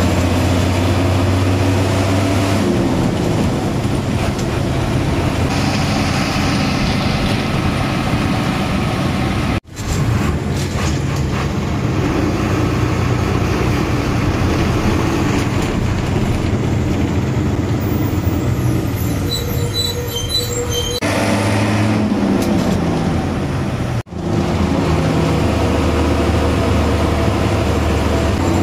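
An old bus's diesel engine running under load as the bus drives along, its note sweeping down at gear changes, about two seconds in and again around twenty-two seconds.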